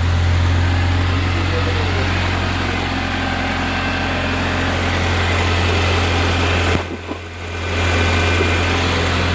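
1998 Honda Civic EK3 engine idling steadily with the A/C switched on, with a strong low hum. About seven seconds in the sound briefly drops away, then returns.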